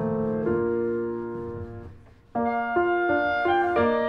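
Soft piano music: held chords fade away about two seconds in, and after a brief pause a new phrase of single notes begins.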